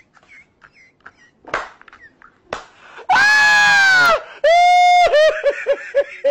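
Two loud, high-pitched shrieking cries, one after the other about three seconds in, then breaking into rapid short bursts of shrill laughter near the end.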